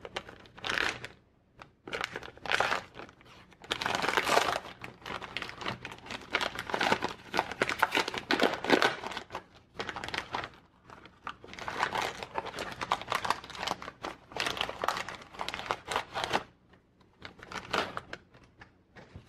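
Foil wrapper of a Panini Select football card hanger pack crinkling and crackling in irregular bursts as it is torn open by hand. The crinkling mostly stops near the end.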